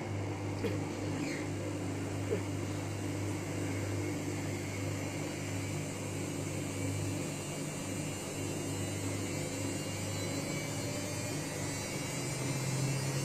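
Samsung Ecobubble washing machine running on a 1200 spin setting: a steady motor and drum hum that shifts slightly higher in pitch near the end.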